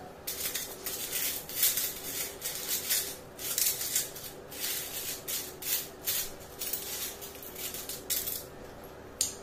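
Coins clinking and jingling as they are picked out of stainless steel bowls and dropped into a bucket, a busy, irregular run of small metallic clinks.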